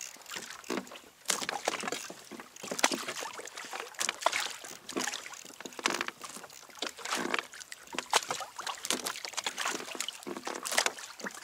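Water lapping and sloshing against a kayak hull, with irregular small knocks and splashes.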